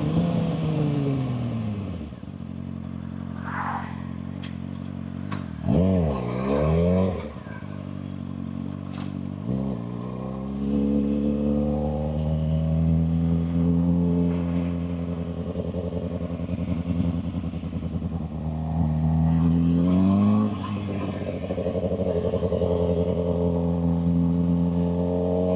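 Suzuki GSX-R600 inline-four sport bike engine heard on board while riding. The revs drop to a low idle, then rise and fall sharply twice about six seconds in, with another short blip a few seconds later. It then pulls away and holds a steady cruising note, with a brief rise in revs around twenty seconds in.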